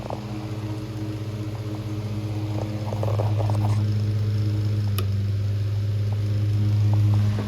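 Antique Robbins & Myers 12-inch table fan running, its electric motor giving a steady low hum. The hum grows louder about three seconds in, with a few light rattling ticks then and a single click about five seconds in, and it drops in level just before the end.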